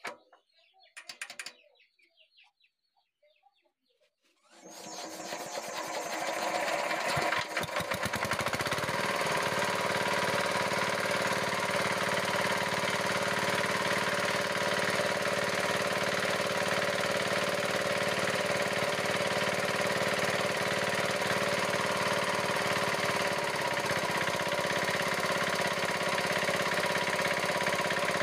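A diesel engine starting about four seconds in, building up over a few seconds and then running steadily. It has just had its loose rocker-arm tappet adjusting nut reset, and the owner says it now runs with a good sound.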